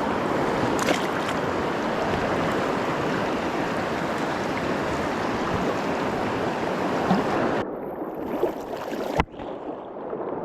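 Steady rush of river water, cutting off abruptly about three-quarters of the way through. A sharp click follows, then quieter water.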